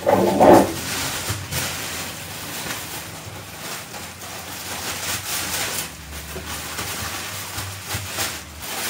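Sheets of newspaper crackling and rustling as they are pulled off wrapped flower bunches and tossed aside, a dense run of crinkles. A short voiced sound right at the start is the loudest moment.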